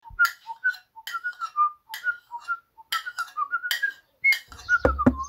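A person whistling a short tune, with sharp clicks or clinks roughly once a second, and a low thump near the end.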